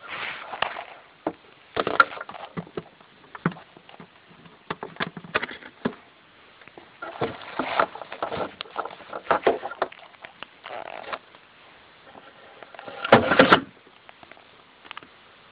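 Irregular clicks, taps and rustling of small plastic parts and wiring being handled by hand, with a louder scraping rustle lasting about half a second near the end.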